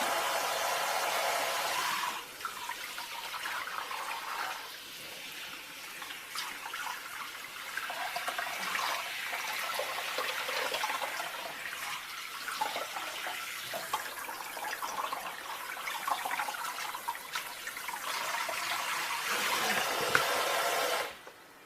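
Steady rushing water, shifting in level a few times and stopping suddenly near the end.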